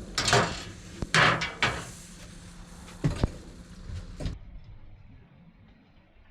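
Metal clanks and knocks as the Orion cooker's lid is lifted off and handled: a cluster of sharp knocks and clatters over the first four seconds or so.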